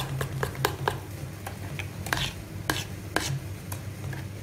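Metal spoon stirring a thick honey-cake mixture in a stainless steel saucepan, clicking against the pot: quick regular clicks in the first second, then a few separate knocks, over a low steady hum.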